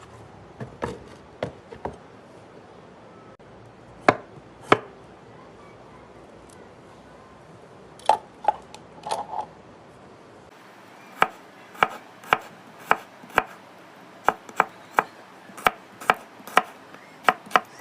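Knife chopping food, sharp separate cuts: scattered at first, then a steady run of about two chops a second through the last seven seconds.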